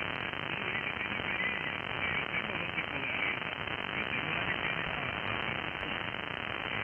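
Icom IC-7300 receiving 80-meter single-sideband with no noise reduction: a steady rush of band noise and static filling a narrow, roughly 3.6 kHz-wide passband, with nobody transmitting.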